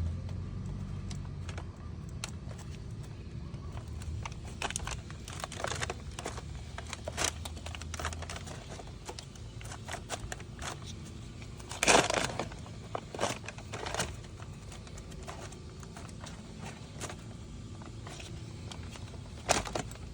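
Rubber edge trim and plastic air-intake parts being handled and pressed into place: scattered clicks, rustles and crinkling. A louder clatter comes about twelve seconds in and another near the end, and a low hum fades out about eight seconds in.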